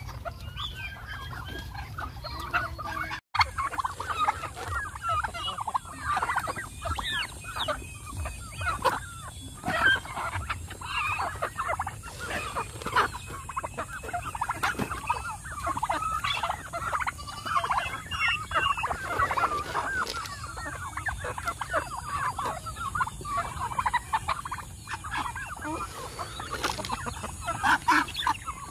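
A flock of turkeys and chickens crowded together feeding, calling and clucking constantly in short overlapping calls. The sound cuts out briefly about three seconds in.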